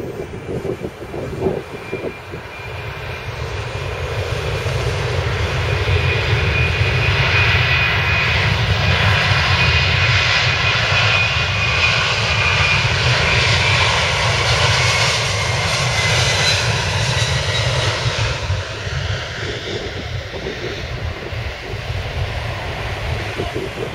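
Twin-engine widebody jet airliner passing by: engine noise builds over several seconds to a peak, then slowly fades, with a high fan whine that falls slightly in pitch as it goes past.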